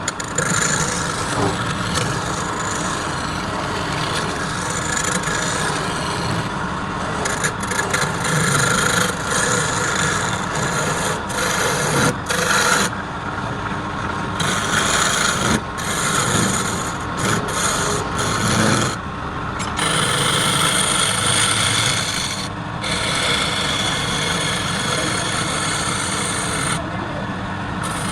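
Wood lathe running, with a tool rubbing and scraping against the spinning wood: a continuous rasping sound that swells and dips a little as the pressure changes.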